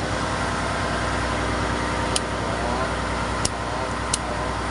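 Steady drone of running ship's machinery, a constant engine hum with several steady tones, broken by three short sharp clicks about two, three and a half, and four seconds in.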